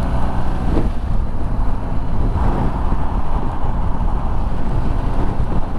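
Motorcycle engine running steadily under way, heard through a loud rush of wind on the rider's microphone.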